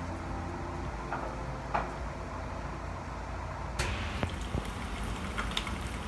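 Cooking at a gas stove: a low steady hum with a few light clicks of a spatula against a frying pan. A little past halfway a soft sizzling hiss comes in, an egg frying in the pan, with small ticks and pops.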